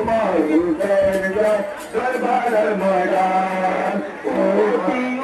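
A man's voice chanting a Muharram mourning lament (noha) in long, bending sung phrases, played over horn loudspeakers.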